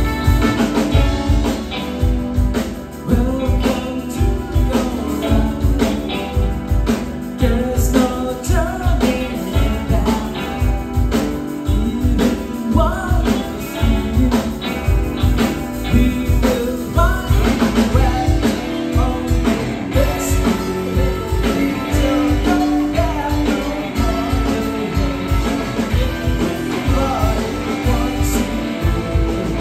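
Live band playing: electric guitar, bass guitar, keyboard and drum kit together, over a steady drum beat.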